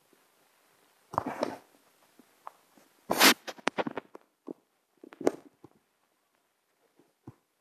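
Scattered knocks, clicks and rustles, the loudest a sharp burst about three seconds in.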